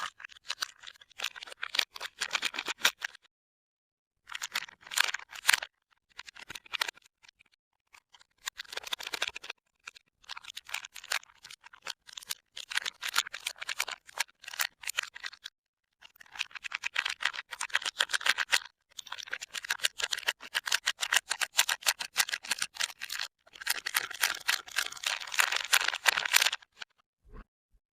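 Soap bar wrappers crinkling and crackling as bars of soap are unwrapped by hand, in several bursts separated by brief silences.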